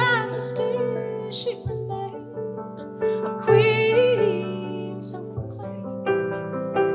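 Live soul song: a woman's voice singing held notes with vibrato over piano or keyboard accompaniment, with a long sung phrase about halfway through.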